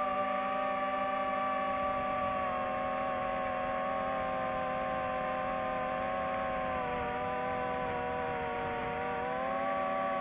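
Drone motors and propellers whining steadily as several blended tones. Their pitch sags together about seven seconds in and rises back near the end as the throttle changes.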